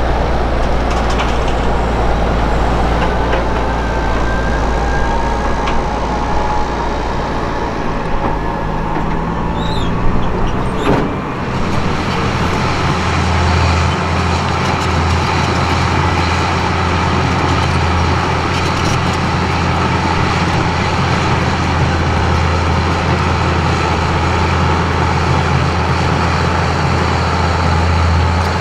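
A Fendt tractor's diesel engine runs as it drives across the site pulling a dump trailer. About eleven seconds in, the sound changes to a New Holland D180 crawler dozer's diesel engine running under load as it pushes soil with its blade, a steady low drone.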